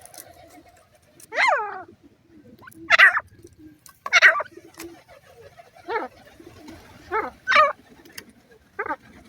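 Grey francolin chicks calling: about seven short, pitched calls at irregular intervals, with a longer call about a second and a half in.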